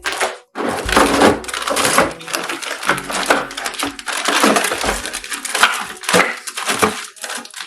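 Close-up kitchen handling noise: a dense run of rustling and crinkling with many small knocks and clicks of items being handled.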